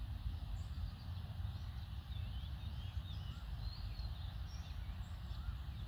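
Outdoor ambience: wind rumbling on the microphone, with small birds chirping faintly in the background, most between about two and four seconds in.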